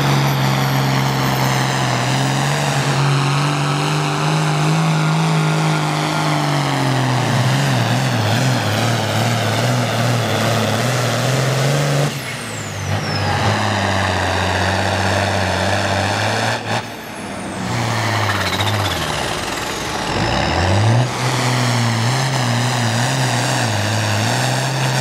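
Diesel farm tractors (a turbocharged International Harvester and a John Deere 5020) pulling the sled under full load, engines running loud and hard. The engine note rises and sags as the load builds, and it changes abruptly a few times as one pull gives way to another.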